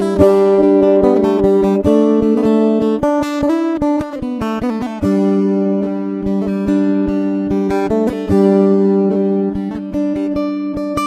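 Background music on acoustic guitar: quick plucked notes over held chords, with a steady rhythm.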